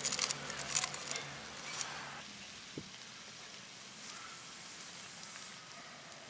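Chicken leg pieces sizzling on charred banana leaves over a wood fire, with sharp crackles in the first two seconds, then a faint steady hiss.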